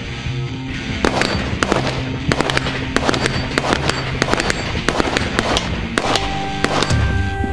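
Rapid, irregular gunshots from competitors shooting steel targets in a 3-gun bout. They start about a second in and stop about six and a half seconds in, over background music.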